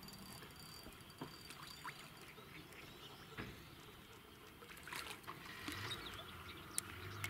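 Quiet pond-side ambience with scattered small water splashes and ticks as rings spread on the surface.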